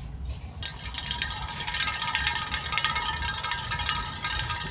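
Tinkling chimes: many overlapping ringing tones struck again and again, starting about half a second in, over a low rumble.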